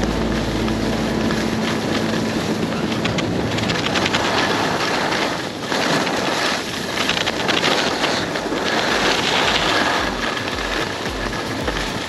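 Skis hissing and scraping over groomed snow at speed, with wind rushing over the microphone. Background music fades out in the first second or two, and a pulsing bass beat comes back near the end.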